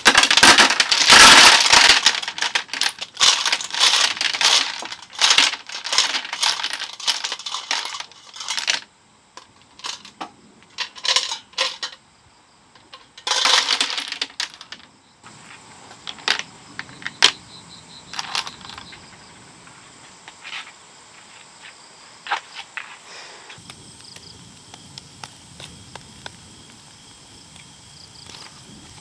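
Metal dishes and utensils clinking and rattling in quick, dense runs, thinning to a few scattered clicks after the middle, with a faint steady high insect drone behind.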